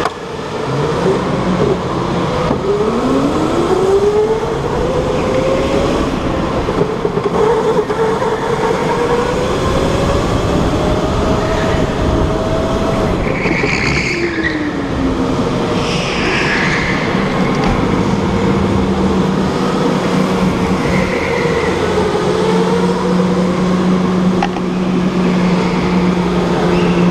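Electric go-kart motor whining, its pitch rising and falling with speed through the corners, with two short high squeals about halfway through. In the last third the whine settles to a steadier tone as the kart holds an even speed.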